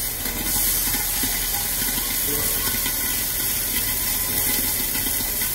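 Beef steak sizzling steadily as it sears in a very hot ridged cast-iron grill pan oiled with avocado oil.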